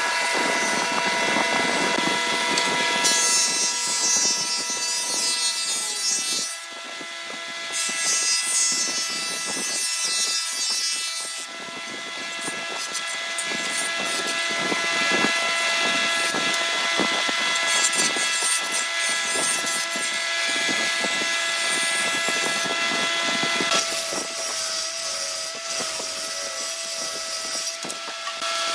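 Jointer running, its spinning cutter head giving a steady whine while a pallet board is fed across it pass after pass, each pass a rough shaving noise that briefly lets up between passes.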